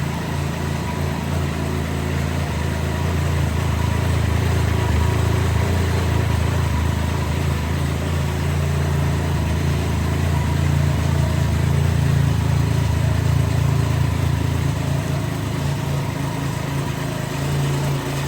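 Can-Am Ryker 900's three-cylinder engine running steadily at idle, a low, even hum.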